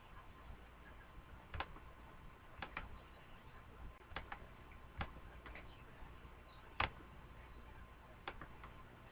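Light clicks and taps at irregular intervals, about a dozen, the loudest a little before seven seconds in, over a faint steady hum.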